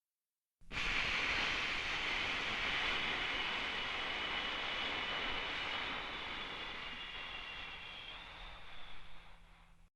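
Long airy hiss of a breathing sound effect, an exhale, that starts abruptly about half a second in, fades slowly and cuts off near the end. Its length fits the eight-count out-breath of 4-7-8 breathing.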